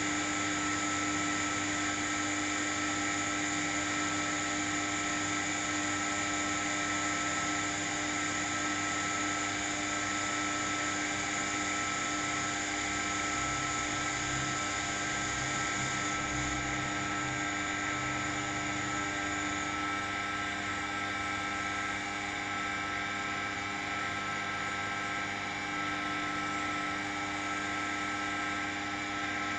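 1512F3 CNC vertical turning lathe running: a steady whine and hum made of several held tones. About halfway through, the highest whine drops away.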